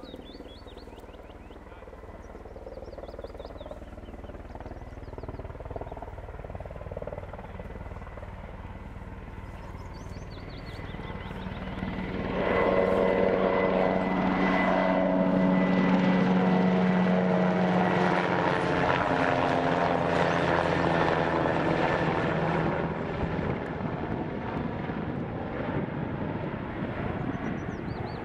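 Firefighting helicopter with an underslung water bucket, its rotor and turbine growing louder as it approaches, loudest for about ten seconds from around 12 s as it passes overhead, with the pitch dropping as it goes by, then easing off somewhat.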